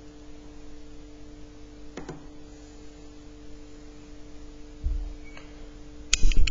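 Steady low hum, with a faint click about two seconds in, a dull thump near five seconds, and a quick cluster of sharp clicks and knocks near the end.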